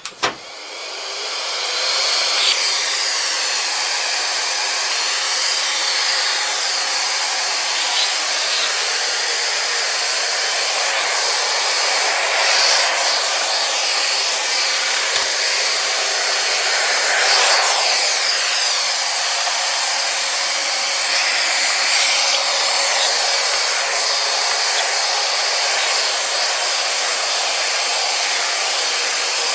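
Xiaomi robot vacuum cleaner running: its fan and brushes make a steady whirring hiss that builds up over the first couple of seconds and then holds steady, with small swells as it moves.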